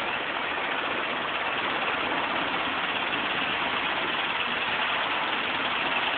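Diesel engine of an ACE mobile crane running steadily at idle while it holds a suspended load.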